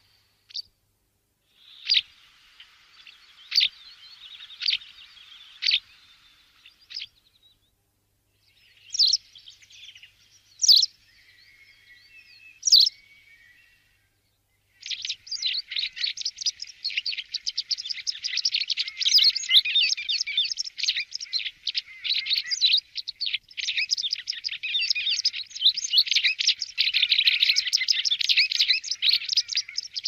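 White wagtail calling: sharp single calls about a second apart in the first half, then a fast, continuous twittering song from about halfway.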